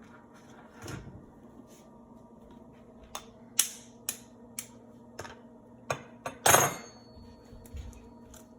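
An egg being tapped and cracked on a bowl amid scattered clinks and taps of kitchen dishes; the loudest clink, about six and a half seconds in, rings briefly.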